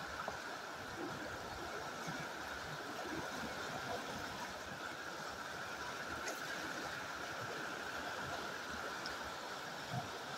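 Fast river water rushing steadily over rocks.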